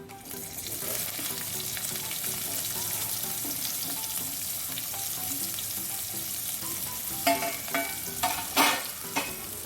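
Finely chopped onion sizzling in hot oil with mustard seeds, cumin and curry leaves, being stirred in the pan. The sizzle swells as the onion goes in, and a few sharp scrapes or knocks from the stirring come near the end.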